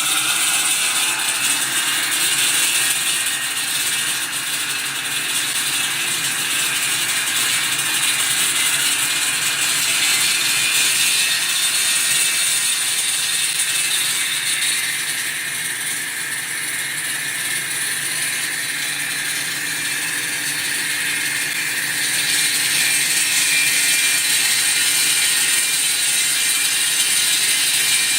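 High-frequency electric concrete wall saw cutting concrete with its diamond blade: a steady, harsh grinding over a motor whine, sagging slightly in level twice as the load changes.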